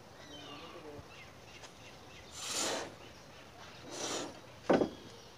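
A worker moving around a stack of precast concrete joists: two brief scuffing rushes, then a short, sharp thump about three-quarters of the way in, the loudest sound.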